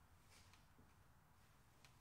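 Near silence: faint room tone, with one faint click near the end.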